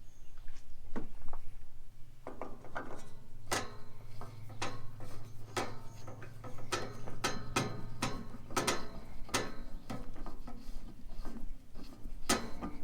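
A series of irregular metallic clicks and clinks, about one or two a second, from hand tools and parts being worked on a tractor during filter servicing, with a low steady hum underneath.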